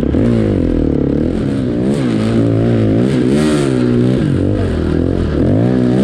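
Snowbike engine (a dirt-bike engine on a snow track kit) revving up and down as the throttle is blipped and rolled on, its pitch rising and falling about once a second.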